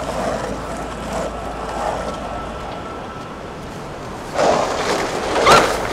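Skateboard wheels rolling on a paved path, a low rumble that fades away about a third of the way in. Near the end a short louder scuffle and a brief cry.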